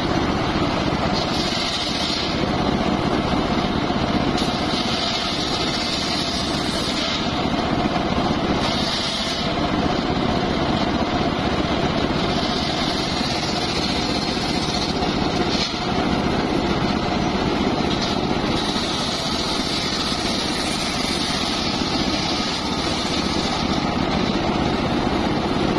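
Homemade bench circular saw with a large blade ripping sengon (albizia) wood, its drive running steadily throughout. A higher whine comes and goes in stretches of a few seconds as planks are fed through the blade.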